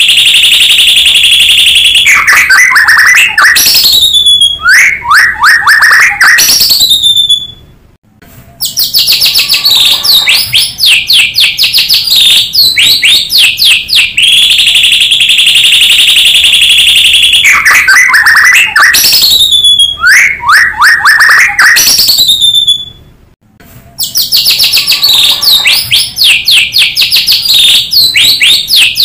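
White-rumped shama (murai batu) singing loudly: rapid strings of clear whistles, trills and sweeping notes. The song breaks off briefly twice, and the same sequence of phrases comes round again, as in a looped lure recording.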